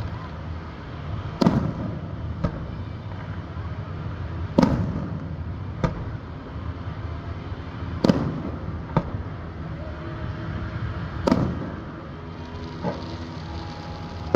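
Aerial fireworks shells bursting overhead: about eight sharp booms at irregular gaps of one to three seconds, the louder ones echoing as they fade.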